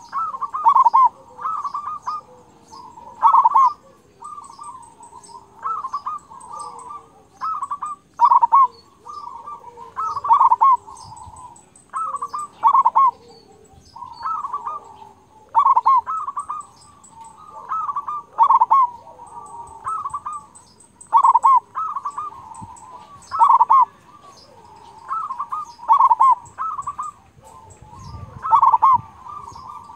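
Zebra dove (perkutut) singing its cooing song: a phrase of quick rolling coos with a loud 'kung' note, repeated about every two and a half seconds. Faint high-pitched chirping in the background.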